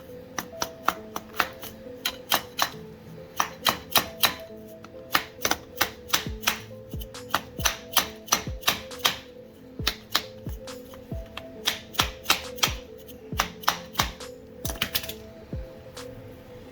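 Repeated sharp taps driving a tight-fitting, freshly sealed part into place on a steering rack during its rebuild. The taps come in quick runs of about two to four a second with short pauses. Background music plays under them.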